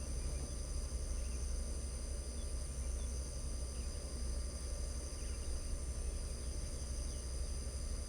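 Chorus of crickets trilling steadily, several high thin tones that never break, over a steady low rumble, with a few faint chirps scattered through.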